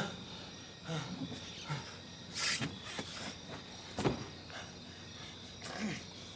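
Short strained groans and grunts from a man struggling on the ground, with scuffs and scrapes of his body against the car, and a sharp knock about four seconds in. Crickets chirp steadily in the background.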